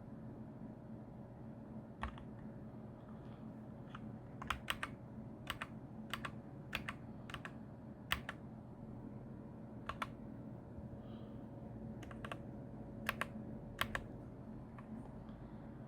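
Keys on a Keychron K8 mechanical keyboard being pressed one at a time and in quick pairs, giving irregular sharp clicks over a steady low hum.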